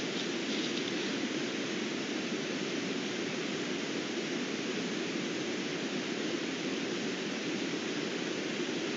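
Steady, even hiss with no distinct sounds in it: the self-noise of a trail camera's microphone.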